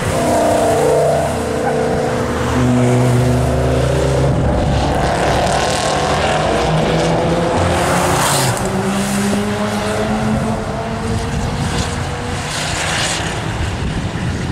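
Tuned Audi RS6's twin-turbo V10 running hard as the car drives past on the track. The engine note climbs and then falls in pitch, loudest about eight seconds in.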